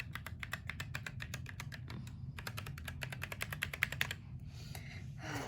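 Akko Sakura Jelly mechanical keyboard with stock, unlubricated yellow switches being typed on fast: a rapid run of key clacks for about four seconds, with a brief pause about two seconds in.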